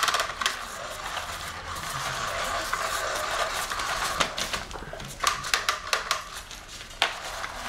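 Crinkly rustling of a cat toy's fabric cover as the toy's wand moves irregularly underneath it. Sharper scratches and taps come from a kitten's paws pouncing on the cover, clustered in the second half.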